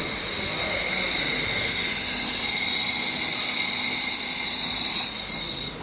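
Handheld laser cleaning and welding machine firing during a test: a steady high-pitched hiss with a faint whine, cutting off suddenly near the end.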